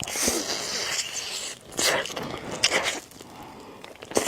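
Close-miked eating of spicy noodles: a long, noisy slurp for about the first second and a half, then a few sharp wet mouth clicks of chewing, growing quieter near the end.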